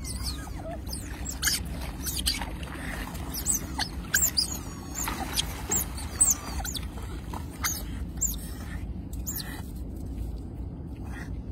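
Birds calling: many short, high-pitched chirps that sweep downward, scattered irregularly over a steady low rumble.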